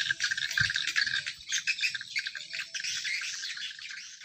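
Many birds chirping together in a dense, busy chorus, growing gradually fainter toward the end.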